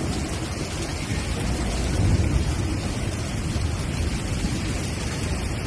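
Floodwater rushing, a steady heavy noise with a deep rumble that swells briefly about two seconds in.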